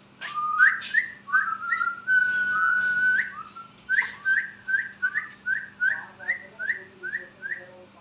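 Clear whistling: a few short rising whistles, a long held note about two seconds in, then a quick run of short upward-sweeping whistles about three a second.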